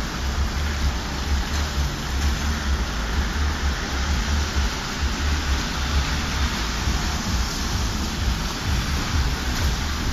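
Steady hiss of wet, sleety snow falling on a street and railings, with wind rumbling unevenly on the microphone.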